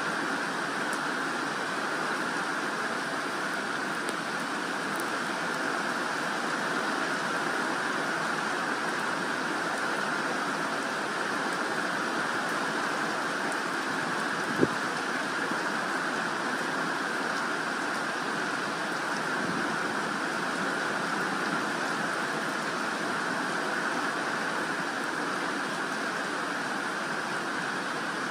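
Steady rain falling on a garden's leaves and grass, an even hiss. A single sharp tap about halfway through.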